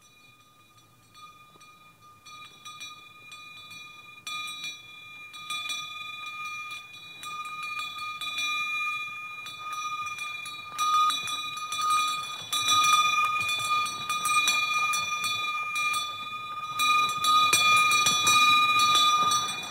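Harness bells on a horse pulling a sleigh, jingling and ringing steadily, growing much louder as the horse approaches.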